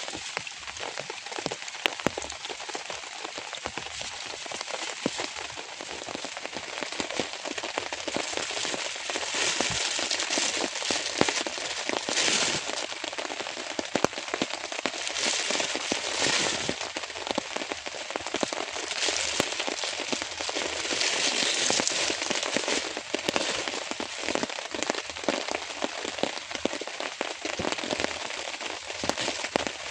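Rain falling steadily, with many separate drops ticking on a surface. It grows heavier several times for a second or two.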